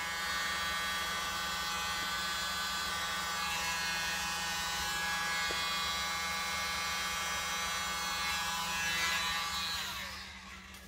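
Small electric blower with a nozzle attachment running steadily with a buzzing whine, blowing air across wet pour paint to spread it out; it winds down and fades near the end as it is switched off.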